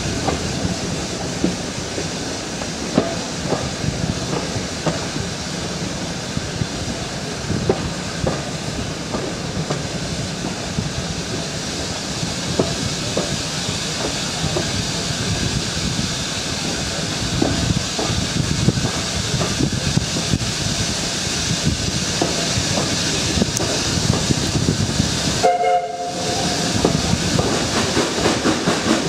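Carriage of a steam-hauled heritage passenger train running along the line: a steady rumble and rush of the train, with irregular clicks of the wheels over the rail joints. The sound briefly breaks near the end.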